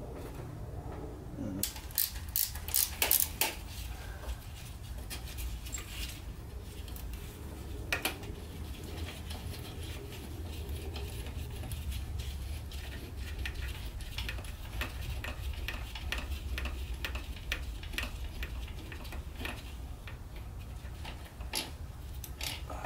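Socket ratchet wrench clicking in quick, even runs as it turns a bolt out, after a few sharper metal knocks about two seconds in. A low steady hum runs underneath.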